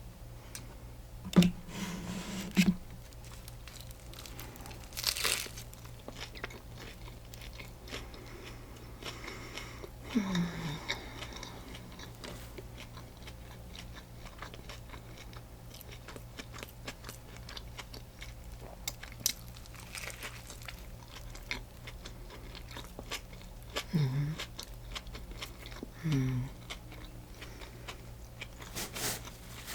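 Close-up eating sounds: biting into a sourdough turkey-and-cheese sandwich, crunching the crust and chewing with wet mouth clicks. There is a hard bite about a second and a half in, and a few short low hums later on.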